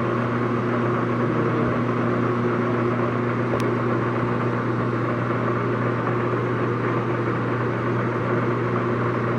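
Longem LG26120C heavy-duty gap bed lathe with its spindle running at about 56 RPM: a steady mechanical hum from the drive and headstock.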